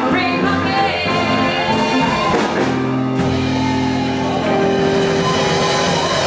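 Live blues band playing with singing, saxophone, guitars, bass and drums. From about two and a half seconds in, the band holds one long chord.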